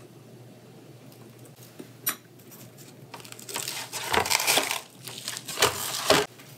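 Raw whole chickens being handled and shifted in a roasting pan: a single click about two seconds in, then two bursts of rustling and knocking as the birds are moved against the pan.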